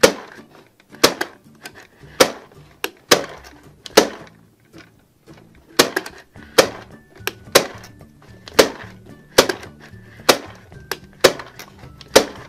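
Plastic clacks from a Moon Dough toy popcorn maker as its hand crank is turned, about one sharp clack a second, each turn popping dough popcorn into the bin.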